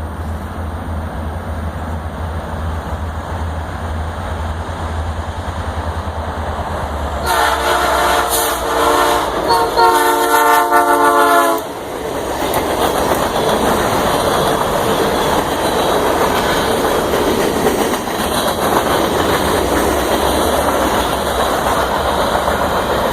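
Union Pacific locomotive horn sounding two long blasts, about 7 seconds in, over a low steady rumble. The passing train's rolling noise and wheels clattering over the rail joints follow.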